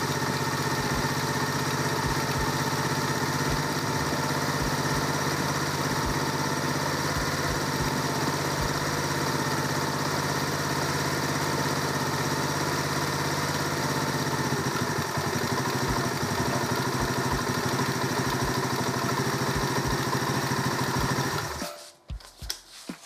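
Freshly installed replacement engine of an Alpha moped, a single-cylinder four-stroke, idling steadily at an even speed, then stopping abruptly near the end.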